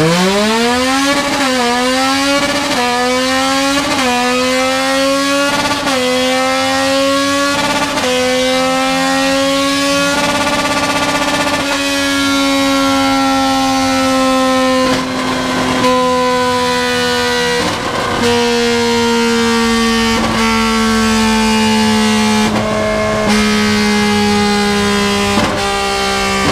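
Yamaha MT-09's three-cylinder engine, breathing through a 3-into-1 straight pipe with no muffler, run flat out on a dynamometer. The pitch climbs fast and steps up through the gears with a short dip at each shift, then holds high near the top of the revs and sags slowly toward the end.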